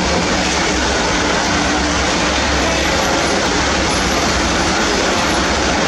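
Vehicle engine running steadily under a loud, even wash of noise, strongest at the low end.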